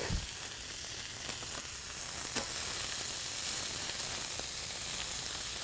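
Raw ground-chuck burger patties and buns sizzling steadily on a preheated griddle, with a few faint ticks.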